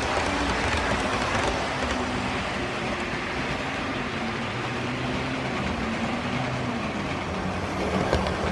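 Model trains running on layout track: a steady rolling rumble of wheels and motors, with a louder pass and a few clicks over the rail joints near the end as a train goes by close.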